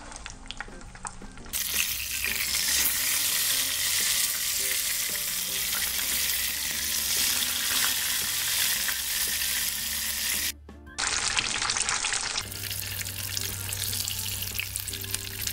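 Belyashi deep-frying in hot oil in a frying pan: light crackling at first, then a loud, steady sizzle of vigorously bubbling oil from about a second and a half in, dropping briefly just after ten seconds and running a little quieter near the end.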